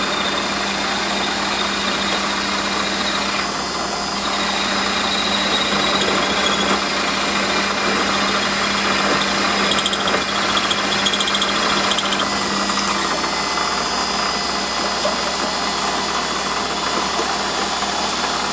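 Warco metal lathe running steadily while a 7 mm twist drill is fed into the turning steel workpiece, a continuous motor hum mixed with cutting noise. A low hum in the sound drops out about two-thirds of the way through.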